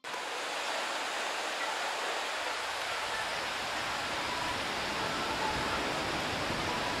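Steady outdoor ambient noise: an even rushing hiss with no distinct events.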